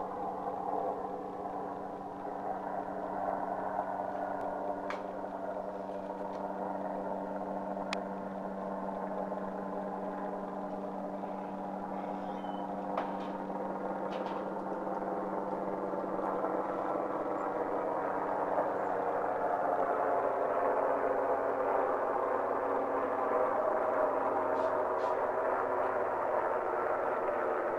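Helicopter in flight overhead: a steady droning hum that grows louder over the second half, with a few faint clicks.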